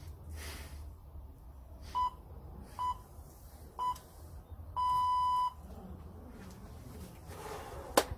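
Round-interval timer signal: three short beeps about a second apart, then one longer beep at the same pitch, marking the start of a new round. A sharp click near the end.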